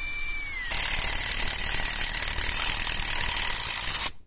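Brushless cordless impact wrench driving a long screw into wood. The motor first runs with a whine; under a second in, the impact mechanism kicks in with loud, rapid hammering as the screw bites. The hammering stops suddenly near the end as the screw seats.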